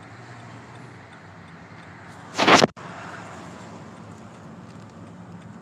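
Car driving, heard from inside the cabin: a steady low hum of engine and road. About two and a half seconds in, a brief loud burst of noise, about a third of a second long, cuts off abruptly.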